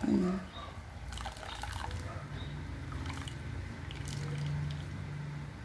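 Celery juice trickling into a plastic pitcher as the blended pulp, wrapped in a terry-cloth towel, is squeezed by hand, with the wet cloth rustling and a low steady hum underneath.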